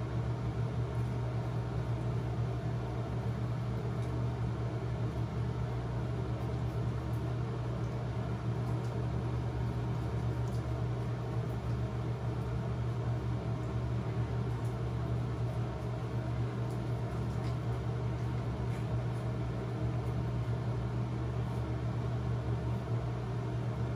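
A steady low mechanical hum, with faint scattered ticks of a spatula stirring mask paste in a small mixing bowl.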